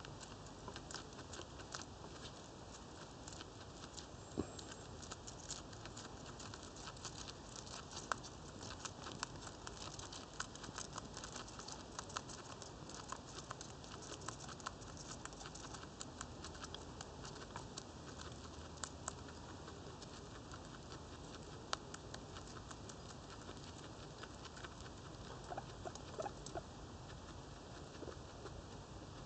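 Guinea pig chewing timothy hay: a quick run of small crunching clicks, dense at first and thinning out over the second half.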